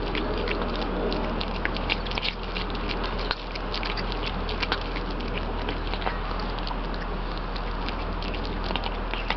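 Kitten eating wet cat food: chewing and lapping, a quick irregular run of small wet clicks and smacks.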